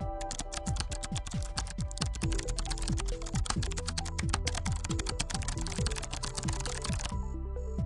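Rapid computer-keyboard typing over background music with a steady electronic beat; the typing stops near the end, leaving the music.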